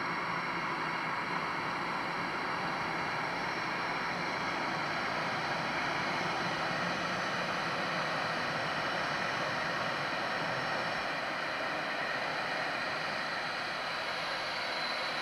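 Steady airport-ramp noise of jet turbines: a continuous roar with a thin high whine over it, unchanging throughout.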